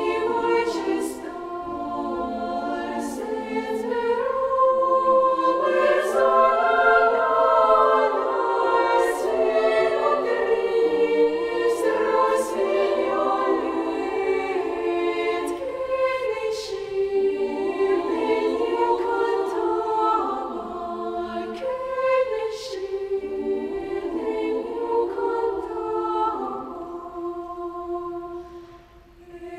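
Children's choir singing in several parts, with long held chords that swell and fall between phrases; the singing dies away briefly near the end.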